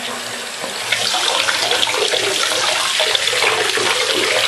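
Water running from a bathtub tap and splashing over a fluorite crystal held in the hand to rinse it. The splashing grows louder about a second in.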